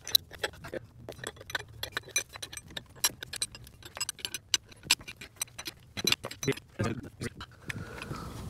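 Ratchet wrench clicking as it turns the nut of an injector puller, drawing a seized diesel injector out of the cylinder head: quick, irregular metallic clicks that stop near the end, giving way to steady background noise.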